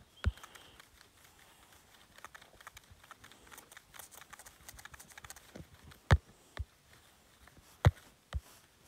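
A few sharp, light taps of a stylus or fingertip on a tablet's glass screen while drawing, one just after the start and four more spaced out near the end, with faint soft ticking between them.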